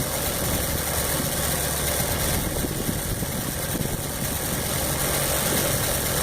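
Earthquake 33cc two-stroke mini cultivator engine running steadily at an even speed.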